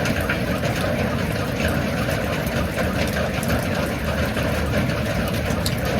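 Steady rain: a continuous hiss dotted with many sharp drop ticks, over a low rumble.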